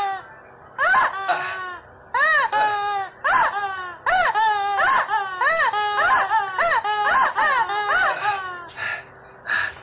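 Yellow rubber chickens screaming as they are squeezed: a rapid run of shrill squawks, each rising then falling in pitch, several overlapping, with a short break about two seconds in.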